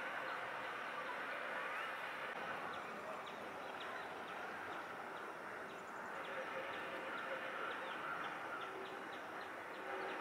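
Birds chirping and calling repeatedly over a steady outdoor background hiss.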